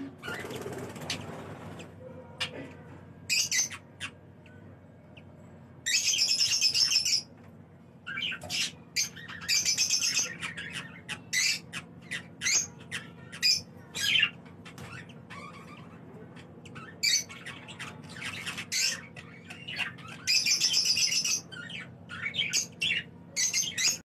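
Budgerigars squawking and chirping: harsh screechy calls of about a second each, several times, with short sharp chirps between them.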